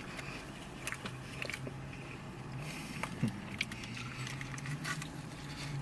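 Close-up chewing of a steak quesadilla: scattered small wet clicks and crunches from the mouth, over a low steady hum.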